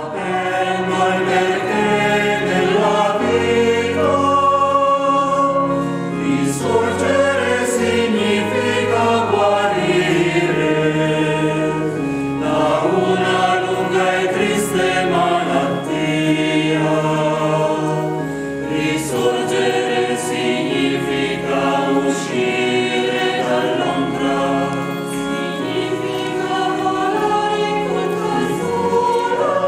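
Mixed church choir of men's and women's voices singing a hymn, with low held notes from a keyboard accompaniment.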